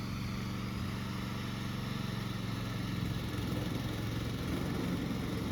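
Petrol engine of a 16 hp remote-control lawn mower running steadily, the mower driving at its high walking speed; the engine note gets rougher from about two seconds in.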